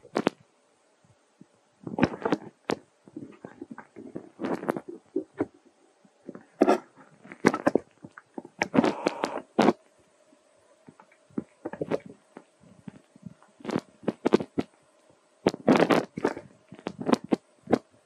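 Close-up eating sounds of a baby macaque: irregular bursts of chewing, lip-smacking and fruit being handled, with sharp little clicks.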